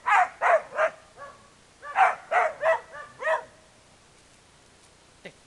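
A dog barking angrily in two runs of quick barks, about four and then five, before falling quiet about three and a half seconds in.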